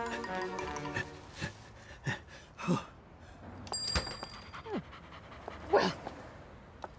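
Small dog panting and giving short whimpers that fall in pitch, the loudest near the end. About four seconds in, a shop door shuts with a click and a brief high bell jingle.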